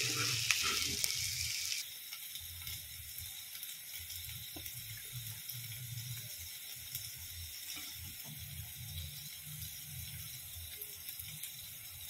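Carrots and peas sizzling in a hot non-stick kadhai for about two seconds, then the sound drops suddenly to a quieter steady hiss and low hum with a few faint clicks of a steel spoon as the bhaji is served onto a plate.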